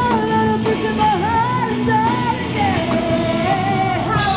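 Live rock band playing: women singing a wavering melody over electric guitar and drums, loud and unbroken.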